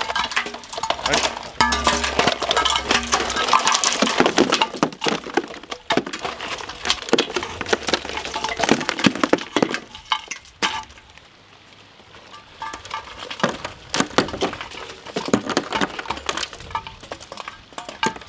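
Chunks of ice poured from a steel bowl into a metal ice-cream drum, clattering and clinking against the metal and each other in repeated pours. The clatter drops away for a couple of seconds a little past the middle, then picks up again.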